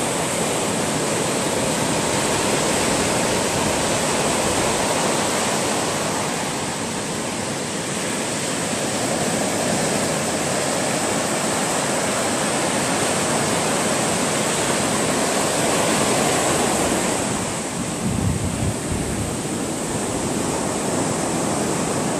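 Ocean surf breaking and washing up a sandy beach: a continuous rushing that swells and eases slowly. A brief low rumble comes in near the end.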